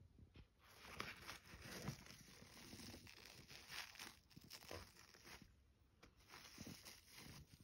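Faint rustling and scraping as the fabric hood of a toy doll's pram is pulled about by hand, in uneven bursts with a short lull about two-thirds of the way in.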